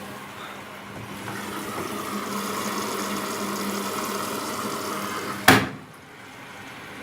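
Washing machine running with a steady hum and a rushing, water-like wash noise. About five and a half seconds in there is a sharp knock, and the hum stops.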